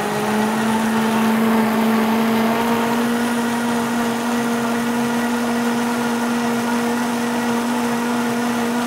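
Optimum high-speed blender running, blending a smoothie. Its motor gives a steady whine that steps up slightly in pitch twice in the first few seconds, then holds steady.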